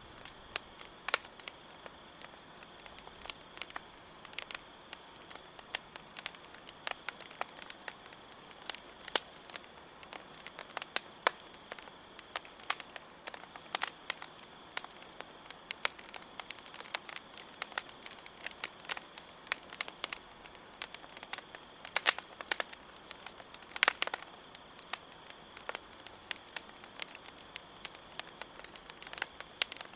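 Wood campfire crackling, with irregular sharp pops and snaps, over the steady high chirring of crickets.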